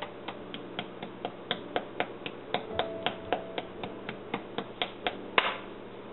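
A white plastic utensil tapping a pancake in a small non-stick frying pan. The taps come quickly and evenly, about four sharp taps a second, with one louder knock near the end. The pancake is being hit to smush it flat so that the excess batter cooks and the pancake does not rise and break.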